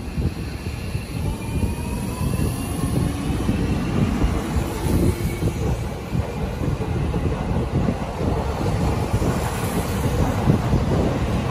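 Electric commuter train pulling out along the platform: a low rumble of wheels on the rails, with the whine of the traction motors rising in pitch as it gathers speed, slowly getting louder.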